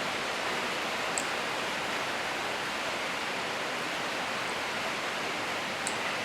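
Steady, even hiss, with a couple of faint light clicks, one about a second in and one near the end.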